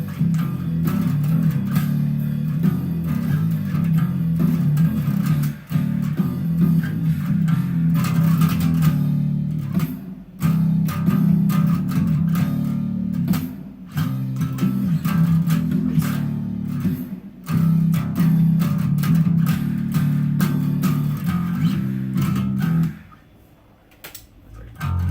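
Bass guitar playing the end of a song, a line of low notes in phrases with short breaks, stopping about 23 seconds in.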